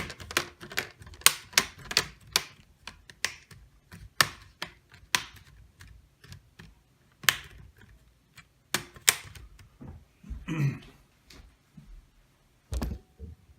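Plastic screen bezel of a Dell Inspiron 15 laptop being pressed and snapped back onto the lid: a run of sharp plastic clicks, quick and close together at first, then spaced further apart.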